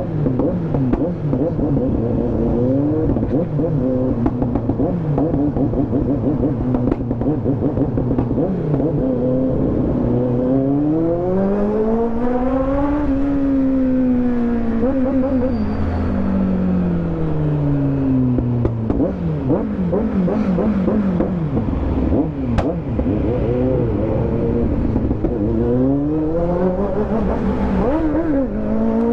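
Kawasaki motorcycle engine heard from the rider's seat, its revs climbing and falling several times as it pulls and eases off, over steady wind and road noise.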